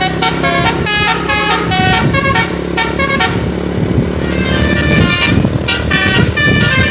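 Bus telolet musical air horn playing a quick tune of short changing notes, thinning out briefly midway and then resuming, over the bus's engine running.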